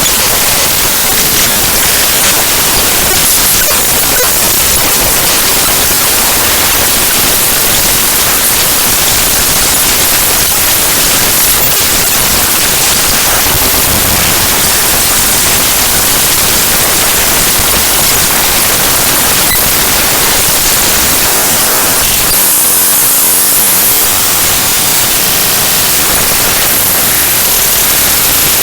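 Raw binary data of the gkmedias.dll library file played back directly as audio by Binary Waterfall: loud, dense static-like noise, with a harsher, brighter stretch about 22 seconds in.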